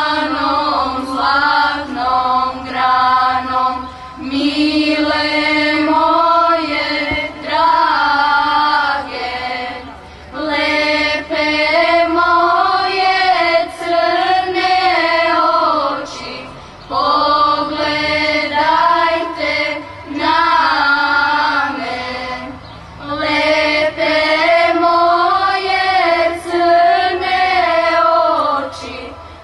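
Children's choir singing together, in long held phrases broken by short pauses about every six seconds.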